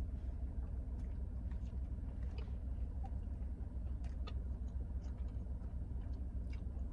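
Steady low rumble of a car interior, with faint scattered clicks of chewing as a burrito is eaten.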